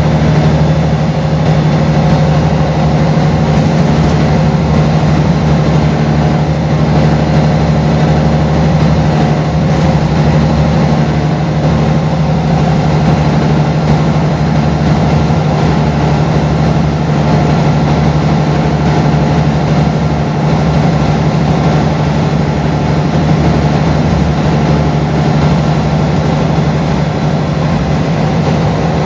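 Mercedes-Benz O405GN articulated bus's diesel engine running at a steady, unchanging pitch, with a deep constant hum.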